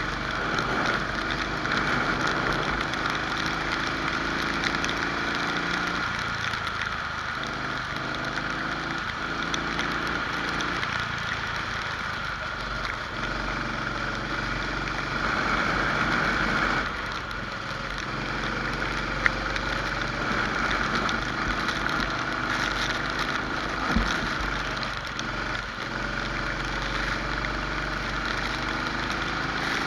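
Rental kart engine at race pace, its pitch repeatedly rising under acceleration and falling as the throttle is lifted for corners. A sharp click about 19 seconds in and a short thump about 24 seconds in.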